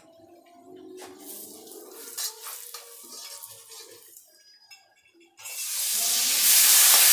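A metal ladle stirs and scrapes spices in oil in a steel kadhai. About five seconds in, water is poured into the very hot oil, which bursts into a sudden loud sizzle that keeps going.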